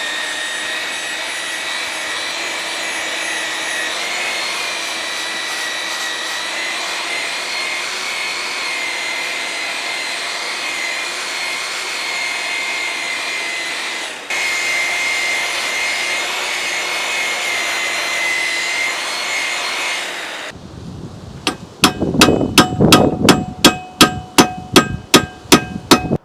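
A high-speed power tool working steel runs steadily with a whine. Near the end it stops and about a dozen evenly spaced, ringing metal strikes follow, roughly three a second.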